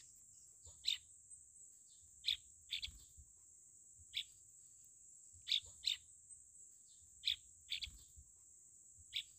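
Faint birdsong: about a dozen short, downward-sweeping chirps scattered irregularly, over a steady high-pitched drone.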